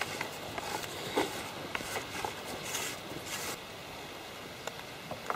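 Faint handling noise: scattered light clicks and brief rustles as a person moves and takes hold of a fishing rod.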